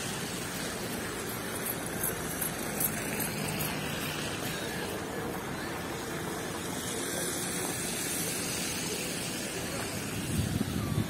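Steady outdoor ambience of distant town traffic, with a short louder patch near the end.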